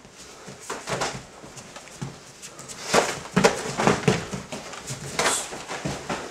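Full-contact karate sparring: a string of sharp impacts as punches and kicks land on bodies and heavy cotton gi, mixed with short shouts from the fighters. The hits come thickest from about three to four seconds in, with another near five seconds.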